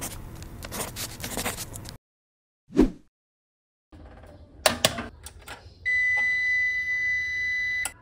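A short whoosh. Then two clicks as the power button of an APC UPS is pressed, and the UPS gives one steady high beep for about two seconds as it switches on.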